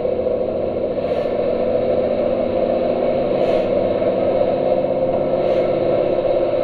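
Lorry's engine and drivetrain droning steadily, heard inside the cab while driving, with a few faint ticks about two seconds apart.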